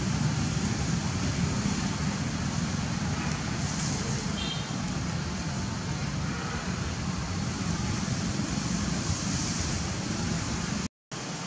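Steady low rumble of road traffic, an even outdoor noise with no clear single event, dropping out for an instant near the end.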